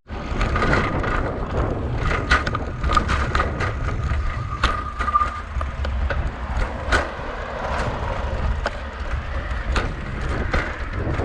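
Bicycle being ridden over a bumpy dirt path: wind buffeting the microphone as a steady low rumble, with frequent irregular clicks and rattles from the bike over the rough ground.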